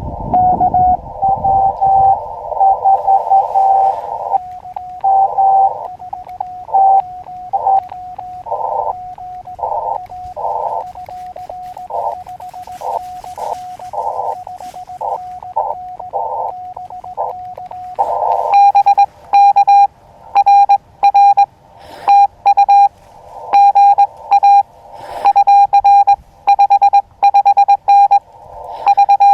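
Morse code from an Elecraft KX2 CW transceiver. For about the first eighteen seconds another station's keyed tone comes through the receiver's band hiss. After that a louder, clean sidetone of the operator's own keyed reply takes over, with the hiss gone.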